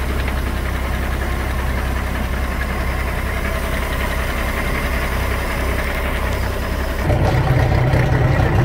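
Newly installed MerCruiser 4.3 Vortec V6 sterndrive engine running steadily out of the water on flush muffs. About seven seconds in it gets louder and its tone shifts, as the exhaust out through the drive comes to the fore.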